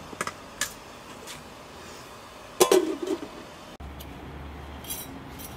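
Metal cookware and dishes clinking: a few light clicks, then a louder ringing clink about two and a half seconds in. After a sudden change to a steady low hum, a few faint clinks of tableware come near the end.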